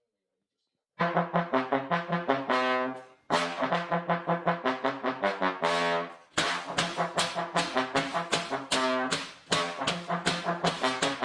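Instrumental music led by a brass melody of quick, detached notes, played in three phrases. It starts about a second in.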